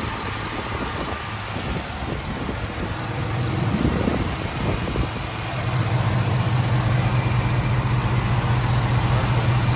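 V8 engine of a 2007 Chevrolet Tahoe idling steadily, heard with the hood open; its low hum grows louder about halfway through.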